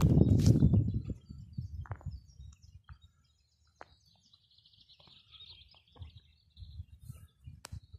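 Small birds chirping faintly, with a loud low rumble on the microphone in the first second and a few scattered clicks.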